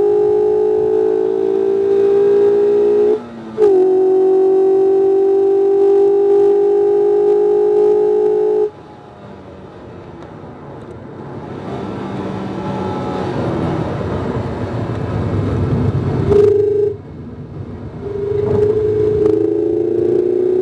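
Mazda MX-5 RF's 2.0-litre four-cylinder engine running hard on track, with a steady, slightly rising note and a short dip about three seconds in. At about nine seconds the engine note drops away suddenly and a rumble builds. Near the end the engine note comes back and climbs in pitch.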